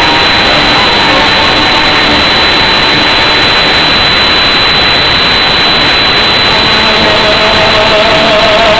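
Tango music over loudspeakers recorded so overloaded that it comes out as a loud, steady, distorted hiss, with a few faint held notes showing through, one stronger near the end.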